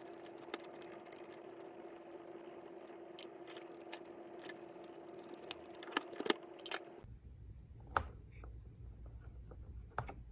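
Small metallic clicks and taps of a screwdriver and loose metal parts as the screws are backed out of an electric fan motor's aluminium bearing bracket and the rotor is worked loose from the stator. Under it is a steady hum that stops abruptly about seven seconds in, after which a low rumble is heard.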